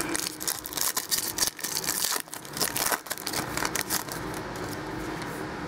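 Foil trading-card pack wrapper crinkling and tearing as it is opened by hand: a dense run of crackles that dies down after about four seconds.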